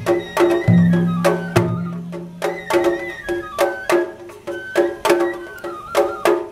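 Japanese festival hayashi music: drums struck in a steady rhythm of about two to three beats a second under a stepping bamboo-flute melody.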